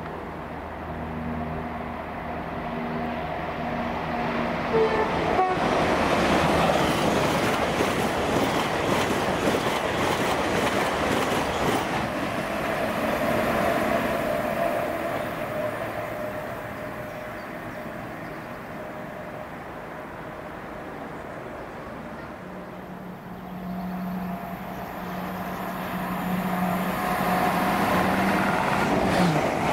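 Passenger trains on the main line: a steady hum gives way to a loud rushing rumble that swells about five seconds in and fades by about eighteen seconds. The rumble builds again near the end with another train.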